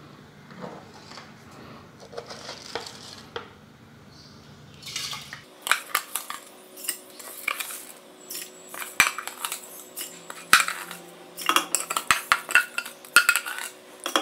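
Kitchen utensil clattering against a plastic bowl and the rim of a clay pot as rice and fenugreek are scraped into the pot: quick clusters of clinks and scrapes that start about five seconds in and grow busiest near the end.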